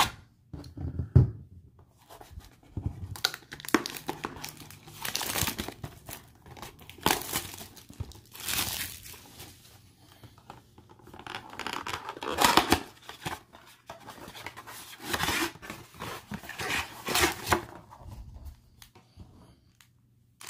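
Cardboard blaster box of 2020 Panini Mosaic football cards being torn open and its foil wrapper packs taken out, with tearing and crinkling coming in a string of separate bouts.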